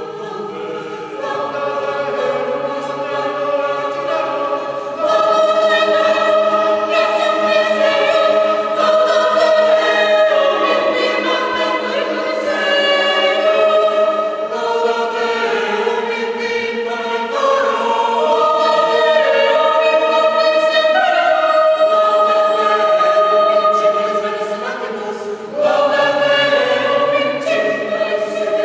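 Large mixed choir singing slow, sustained chords in several voice parts, swelling louder about five seconds in, easing off briefly near the end and then swelling again.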